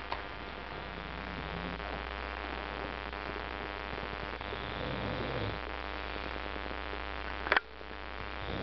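Steady electrical hum and hiss, with faint snoring from a sleeping man about two and five seconds in, and one sharp click near the end.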